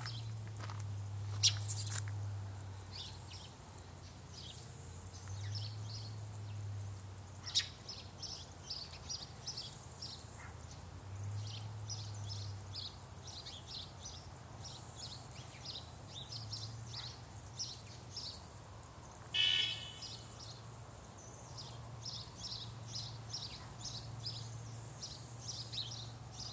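Small birds chirping outdoors, a steady stream of short, high chirps, with one louder, harsher call a little before the end. A low hum comes and goes underneath.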